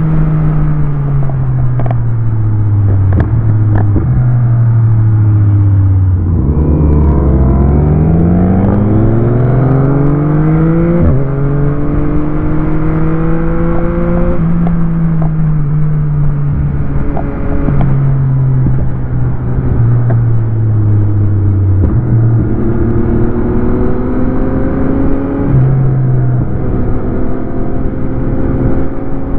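Motorcycle engine under way, its revs stepping down through several downshifts to a low point about six seconds in, then climbing again through a series of upshifts, with steady wind rush underneath.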